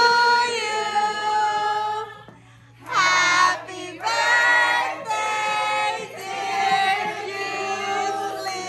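A high voice singing long held notes, with no clear instruments behind it and a short break about two seconds in.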